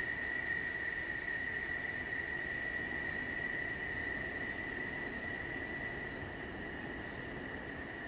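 Tropical forest insect chorus: one steady, unbroken high buzz, with a few faint short chirps scattered through it.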